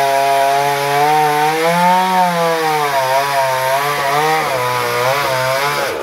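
Two-stroke chainsaw cutting through a coconut trunk, its engine running steadily at high speed with the pitch dipping and rising as the chain bites into the wood. It cuts off near the end.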